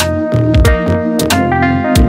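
Background music: sustained melodic notes over a bass line, punctuated by regular drum hits.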